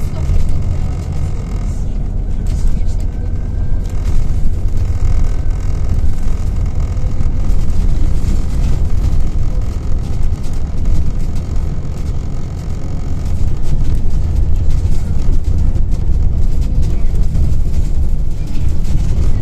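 Scania Citywide LF city bus (CN280UB) running, a steady low engine rumble with road noise that swells and eases a little as it drives.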